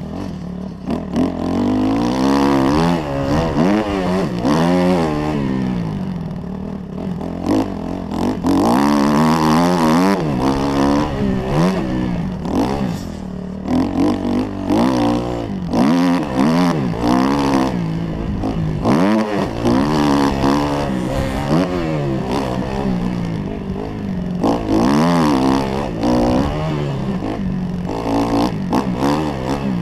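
Kawasaki KX 250F's four-stroke single-cylinder engine revving up and dropping off again and again as the dirt bike is ridden around a motocross track, heard from a camera mounted on the bike.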